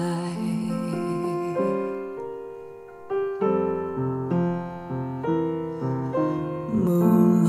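A gentle piano passage played back through a pair of small Pioneer Pure Malt two-way bookshelf speakers with Kevlar-cone woofers, driven by an LM3886 chip amplifier. Single held notes thin out and fade about three seconds in, then deeper bass notes come in under the melody.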